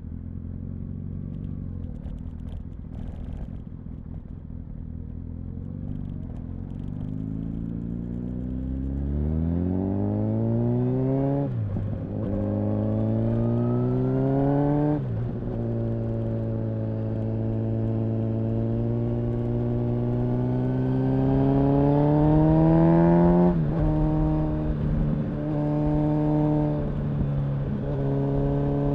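Exhaust of a 2004 Honda CBR1000RR Fireblade's inline-four engine. It runs low and steady at first, then revs up, dropping sharply at upshifts about 11 and 15 seconds in. It holds a steady note for several seconds, then dips briefly a few times as the throttle is closed, and climbs again near the end.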